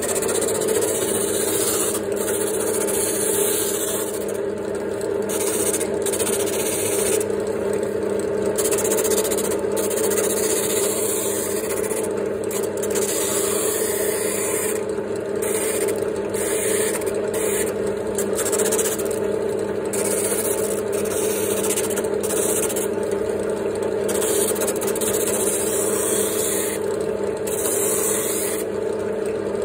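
Benchtop drill press running steadily with a sanding drum in its chuck, a plywood edge pressed against the spinning drum. The sanding hiss comes and goes every second or two over the steady motor hum as the edge is worked along the drum.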